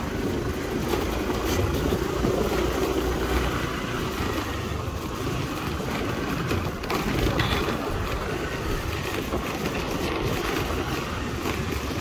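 A small scooter engine running steadily while it is ridden along a rough dirt track, with road noise from the ride.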